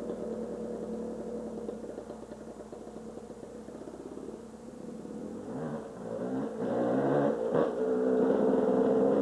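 Yamaha YZ dirt bike engine revving out of sight, its pitch rising and falling through the gears, fainter at first and then growing louder from about six seconds in as the bike approaches.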